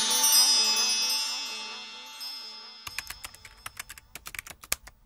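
A shimmering chime sound effect rings and slowly fades away. From about three seconds in it gives way to quick, irregular keyboard-typing clicks, a typing sound effect for on-screen text.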